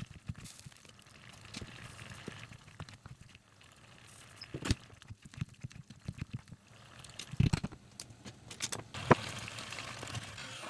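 Kitchen cooking sounds: scattered clinks and knocks of utensils and cookware, the loudest about halfway through and twice more later on, over a low steady hum.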